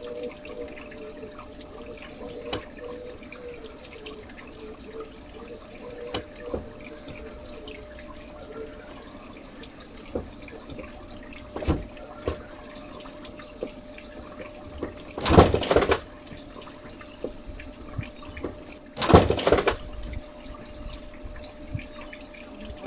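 Garden pond water trickling steadily, with a faint steady hum under it. Two short, loud noises break in, about fifteen and nineteen seconds in.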